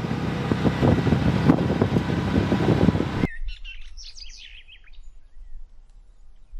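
Steady engine and road noise inside a moving vehicle, loud and mostly low, cutting off suddenly about three seconds in. Then it is quiet except for birds chirping, a quick run of short high calls.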